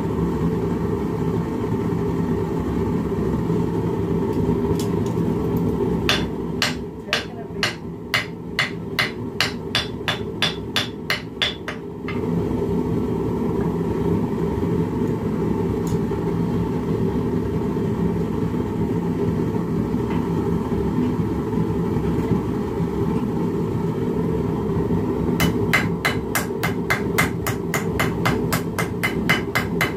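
Hand hammer forging red-hot steel on the anvil of a bench vise: a run of sharp strikes, about three a second, for some six seconds, and another quicker run near the end. A steady low rushing noise runs underneath.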